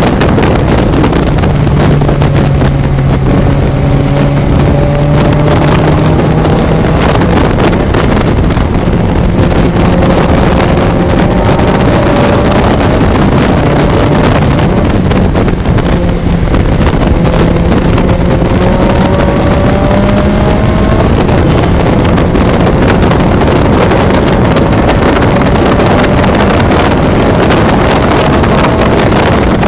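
Onboard sound of a VITA-01 race car's 1.5-litre four-cylinder engine under load, its pitch climbing slowly through long pulls and dropping at shifts and braking, under heavy wind and road noise from a wet track.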